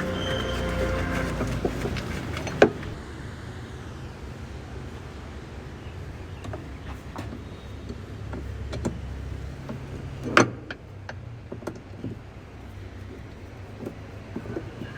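A low, steady hum that stops about ten and a half seconds in, with two sharp knocks and scattered small clicks and taps, as of hands working on metal and plastic parts.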